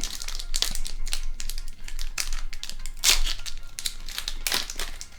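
Foil Pokémon booster pack wrapper being torn open and crinkled by hand: irregular crackly rustles, loudest about three seconds in.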